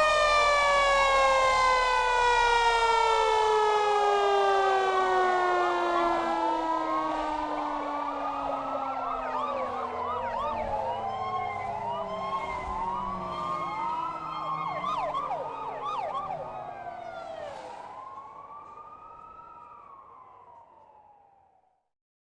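Police sirens: several overlapping sirens wail up and down, while one siren with a rich tone winds slowly down in pitch. All of them fade out near the end.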